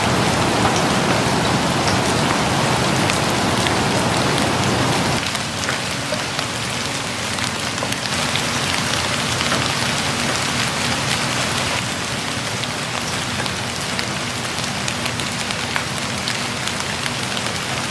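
Steady rain falling, with many small drops ticking through it; about five seconds in, the deeper part of the rain sound drops away and it carries on a little quieter.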